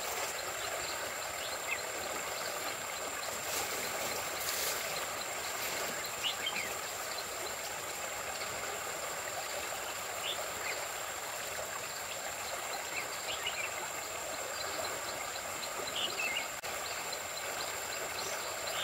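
Steady rush of a muddy, fast-flowing river, with a few faint short high chirps and a thin steady high tone above it.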